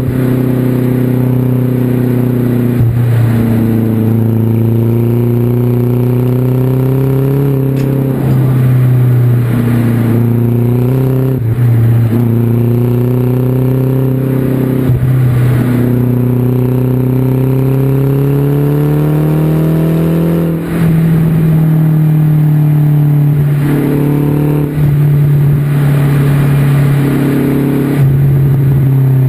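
2010 Mazdaspeed3's turbocharged 2.3-litre four-cylinder running through an X-Force 3-inch turbo-back exhaust with a single high-flow cat while the car is driven. The engine note climbs slowly under way and dips briefly several times as the revs change.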